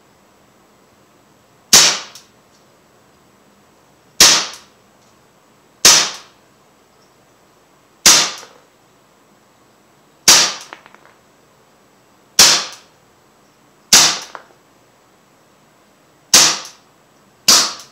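Umarex Legends M712 CO2 blowback BB pistol firing single shots on semi-auto: nine sharp cracks, one every two seconds or so.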